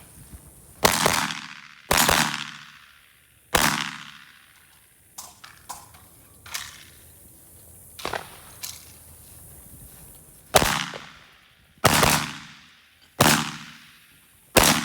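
Shotgun firing: three loud shots in the first four seconds, a pause filled with fainter sharp knocks, then four more shots about 1.3 seconds apart, each trailing off in echo.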